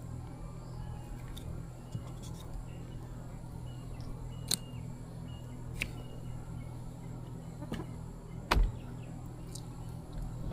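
A steady low hum with a few sharp clicks and knocks, the loudest about eight and a half seconds in.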